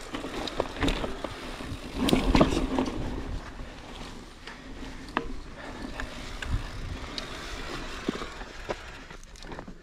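Mountain bike riding down a dirt singletrack: steady tyre noise on the dirt with frequent clicks and rattles from the bike as it goes over bumps and roots, loudest about two seconds in.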